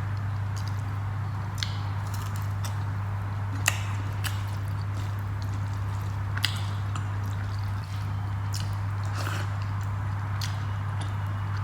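Close-up eating sounds: chewing and the wet squish of rice and dal being eaten, with short sharp clicks every second or two, the loudest nearly four seconds in. A steady low hum runs underneath.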